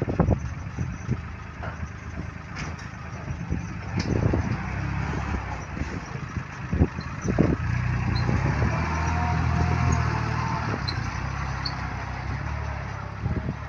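Farm tractor's diesel engine running steadily and working harder for several seconds in the second half as its front-end loader raises a bucket of rice husks and the tractor backs away. A few sharp knocks from the loader and its load, one near the start, one about 4 s in and two about 7 s in.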